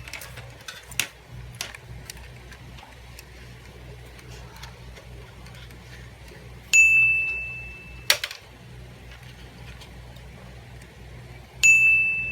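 A high, bell-like ding rings twice, each time for about a second before it is cut off by a sharp click; a few light clicks come early on.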